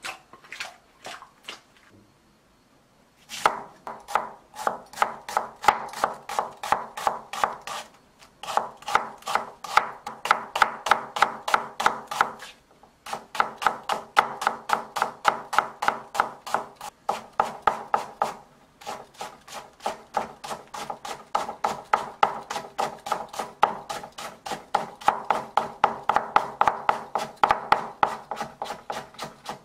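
A nakiri-style vegetable knife slicing onion and then carrot into thin strips on a bamboo cutting board: quick, even knife strikes at about four a second in three long runs with short breaks. A few separate light knocks come first.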